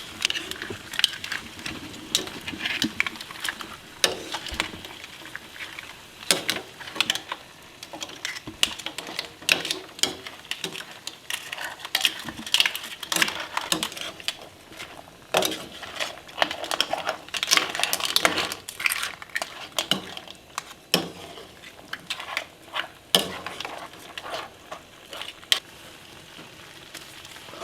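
Utensil stirring in a pot, with irregular scrapes and knocks against the metal, over a soft sizzle of onion and garlic frying in butter and oil.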